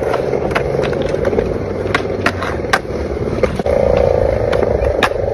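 Skateboard wheels rolling on skatepark concrete with a steady rumble, crossed by a number of sharp clacks and knocks from the board.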